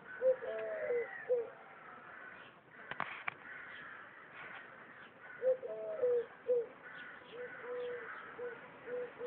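Doves cooing: low repeated coos in two bouts, one near the start and one from about five seconds in, the later coos short and evenly spaced. Small birds chirp faintly underneath, and there is a sharp click about three seconds in.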